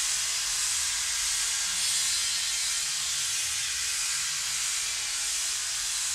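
Steady synthesized white-noise hiss from the jam's synth setup, holding level with no melody, over faint uneven low pulses.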